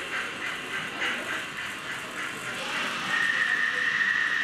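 Model railway locomotive sound effects: a quick even pulsing, about three to four beats a second, then a steady high whistle from about three seconds in.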